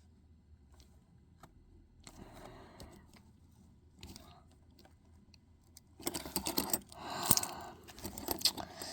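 A small key jiggled and scraped in a stiff lock on a toy claw machine's coin box that will not turn, giving faint scattered clicks at first and then, about six seconds in, a busy run of sharp metal clicks and rattles.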